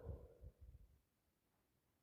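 A person with a heavy cold breathing out, with a few low thumps, fading within the first second; then near silence.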